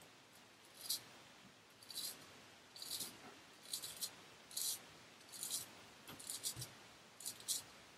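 Hollow-ground straight razor shaving through lathered stubble on the chin: short dry scraping strokes, roughly one a second, some in quick pairs.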